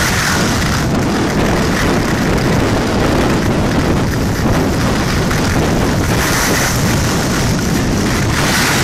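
Wind buffeting the microphone of a camera carried down a ski slope, under the steady hiss of skis sliding over groomed snow. The hiss brightens at the start and again about six seconds in.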